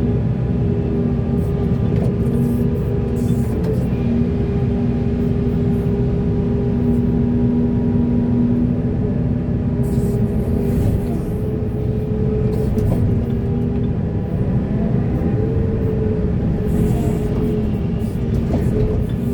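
Heavy excavator's diesel engine running steadily under load, with a low rumble and a held engine hum that shifts slightly in pitch partway through. Short bursts of hissing or scraping noise come several times.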